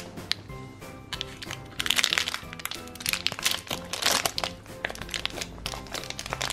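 Metallic foil blind-bag wrapper crinkling as fingers peel it off a small plastic figure, loudest in two spells about two and four seconds in, over background music.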